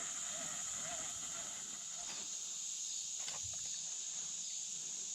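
Steady, high-pitched insect chorus, crickets or katydids trilling without a break, with a few faint clicks near the middle.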